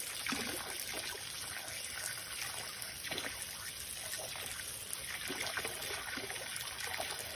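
Garden hose spraying a thin stream of water into a plastic basin of water, a steady trickling splash, with small uneven splashes as a young raccoon paws at the stream.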